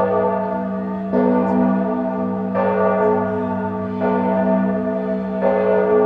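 A bell tolling slowly, struck about every one and a half seconds, each stroke ringing on under the next.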